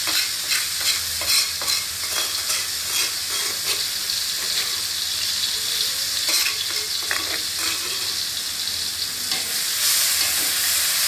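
Sliced shallots, garlic and red chilli sizzling steadily in hot oil in a wok, with the scrape and clack of a metal spatula stirring them now and then.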